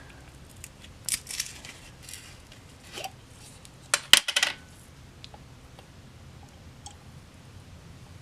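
Small hard objects clinking and scraping, like tableware or bottles handled on a table: a few clicks about one second in, a small one about three seconds in, and a louder quick cluster of clicks about four seconds in, then quiet.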